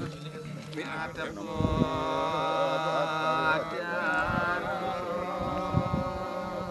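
A voice chanting a Hindu prayer in long, held, gently wavering notes, beginning about a second in.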